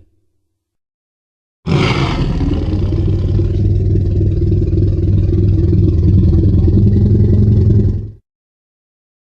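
Tyrannosaurus rex sound effect: a long, low rumbling growl that starts abruptly about two seconds in, holds steady for about six seconds and cuts off suddenly.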